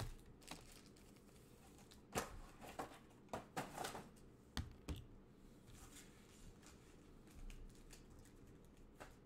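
Quiet room with about ten scattered, light clicks and taps, most of them bunched in the first half.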